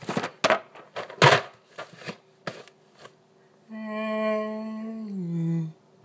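A man's drawn-out vocal yell held on one pitch for about two seconds, then dropping lower as it ends: a mock Dragon Ball energy-attack cry. Before it come a few sharp knocks and rustles of handling, the loudest about a second in.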